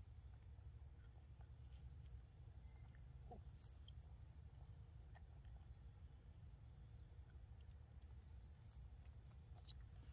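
Near silence: a faint, steady high-pitched drone of insects such as crickets, over a low background rumble, with a few faint ticks.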